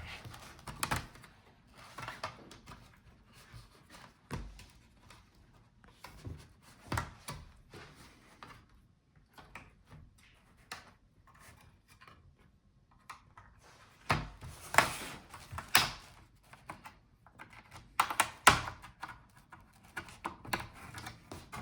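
Plastic clips of a laptop's bottom case snapping loose as a plastic pry tool works around the edge, with scattered clicks, ticks and knocks of plastic on plastic. The snaps come thicker and louder in the second half.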